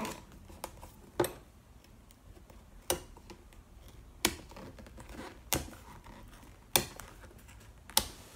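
A series of about six sharp clicks, a little over a second apart: a small hand cutting tool snipping the binding threads of a book, one cut at a time.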